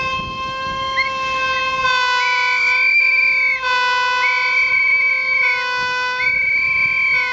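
Hurtigruten ships' horns sounding in salute as they pass each other: a long, sustained chord of steady tones whose upper notes shift about every second.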